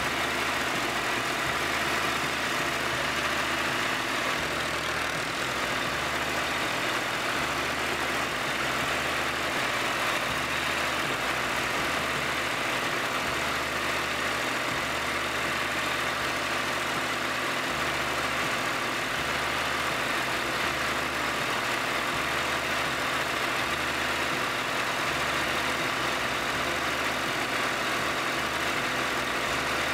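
Terraplane TD38 (Dongfeng) tractor's engine running steadily as the tractor drives along.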